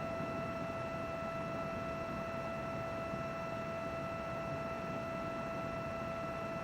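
Desktop computer running steadily: an even whir of fan air with a constant whine made of several held tones, unchanging throughout.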